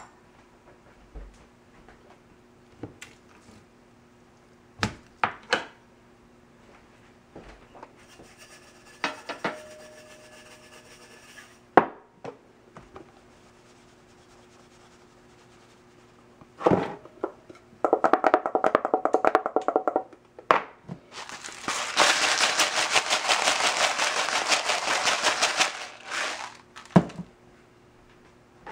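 Spice shakers rattling fast as they are shaken over a raw beef roast. There is a short burst about two-thirds of the way in, then a louder one lasting about five seconds. In between come scattered knocks and clicks of containers being picked up and set down on the counter.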